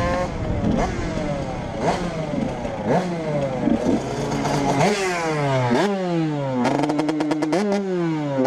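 KTM 125 EXC single-cylinder two-stroke engine, its revs snapping up sharply and then falling away, over and over about once a second.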